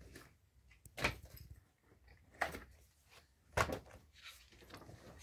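Books and a school backpack being handled: three short knocks about a second apart, with soft rustling between them, as books come out of the bag and are set down.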